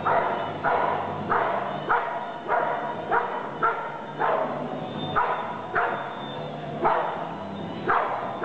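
A working dog barks sharply and repeatedly, about one bark every half second, at a decoy who is reaching for the object it is guarding. Each bark rings briefly in a large hall.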